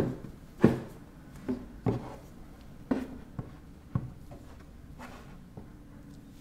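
A stiff printed card backdrop is handled and unfolded on a table: a run of irregular taps and flexing thumps of the board with light rubbing, most of them in the first four seconds.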